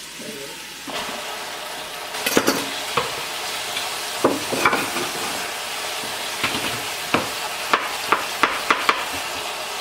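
Chicken pieces searing in hot oil in an Instant Pot's inner pot on the sauté setting: steady sizzling that swells about a second in, with sharp pops and taps throughout.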